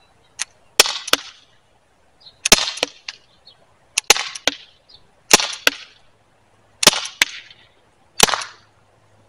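Six shots from a T4E HDR 68 .68-calibre CO2 launcher, 7.5-joule version, firing heavy BK Kinetic rounds, about one every second and a half. Each shot is a sharp pop, followed about a third of a second later by a second sharp knock.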